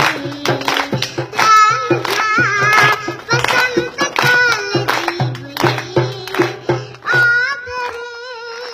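A young girl singing into a microphone while beating a small drum slung at her waist, the strikes keeping a steady beat under her voice. Near the end she holds one long note as the drumming stops.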